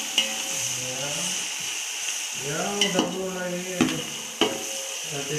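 Sliced onions and spices frying in oil in a steel pot, a steady sizzle, while a spoon stirs them and knocks sharply against the pot a few times.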